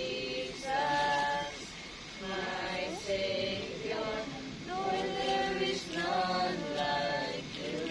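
A group of voices singing together in held, sustained notes, several phrases in a row.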